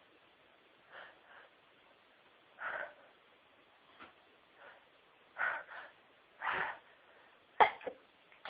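A woman's sneezing fit: a series of short breathy gasps about a second apart, then one sharp sneeze near the end, the loudest sound.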